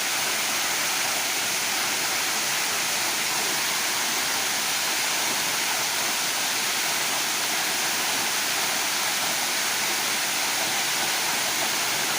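The Ksheera waterfall's water pouring down: a steady, even rush of falling water.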